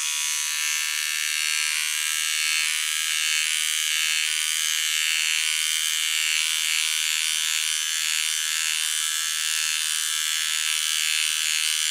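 Silvercrest SMT 3 A1 battery-powered precision trimmer, with its eyebrow-trimmer head and comb attachment, running at its single speed with a steady high buzz as it is drawn over the hair on the back of a hand.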